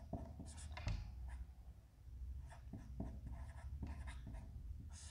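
Marker pen writing on a whiteboard: a run of short, irregular scratchy strokes, over a faint steady low hum.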